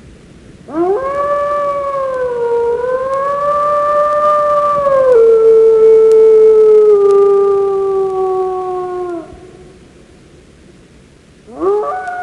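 Canine howling: one long howl that rises quickly at the onset, holds a fairly steady pitch, steps down in pitch about halfway through and trails slowly lower before breaking off. A second howl begins near the end.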